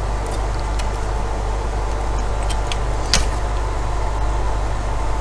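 Steady low electrical hum with room noise, and a few light clicks of small plastic and metal router parts being handled, the sharpest about three seconds in.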